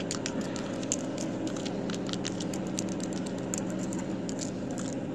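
Irregular light clicks and taps on a small glass bowl as loose nail glitter is mixed in it, over a steady low hum.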